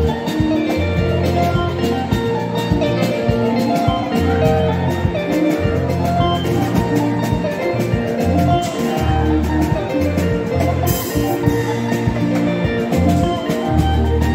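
Live seben band music: an electric guitar solo line over a drum kit beat and a Yamaha PSR-S670 keyboard playing sustained low notes and chords. There is a cymbal crash about eleven seconds in.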